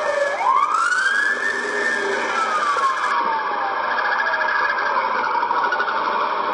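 Police car siren wailing: one slow rise in pitch over about a second, then a long, gradual fall over the next few seconds.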